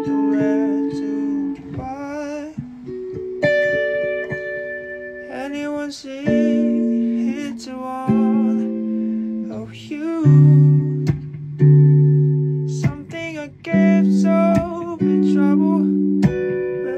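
Guitar playing: held, ringing chords under a higher melody line that wavers in pitch, changing notes every second or two.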